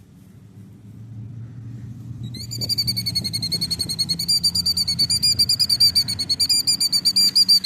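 A killdeer on its nest gives a rapid, steady run of high, shrill notes, several a second, starting about two seconds in. This is the agitated alarm trill of a bird disturbed at its eggs. A low engine rumble runs underneath.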